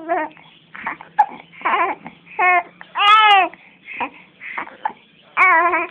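Young infant cooing and babbling: a string of short, high vocal sounds, with a longer, louder rising-and-falling coo about three seconds in.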